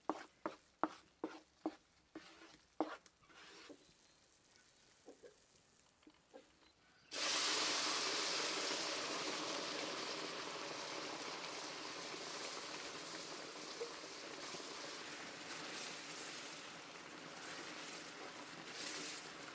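A wooden spatula scrapes and knocks a thick flour mixture around a large metal pan, several short strokes. About seven seconds in, a sudden loud sizzling hiss starts as liquid meets the hot pan and sends up steam, then slowly dies down as it bubbles.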